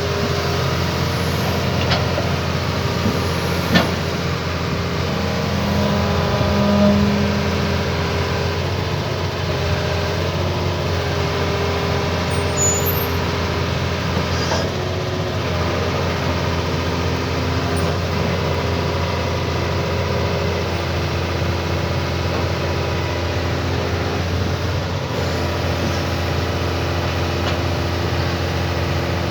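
Excavator diesel engine running steadily, with a sharp knock about four seconds in.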